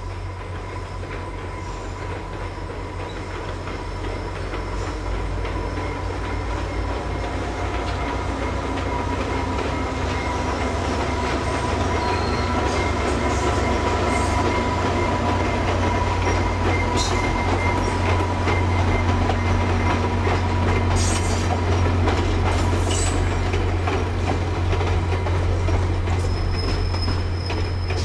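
VIA Rail passenger train led by an EMD F40PH-2 diesel locomotive (16-cylinder two-stroke EMD 645 engine) approaching and passing: a steady low diesel rumble that grows louder toward the middle, with rail-wheel clatter and a thin steady wheel squeal.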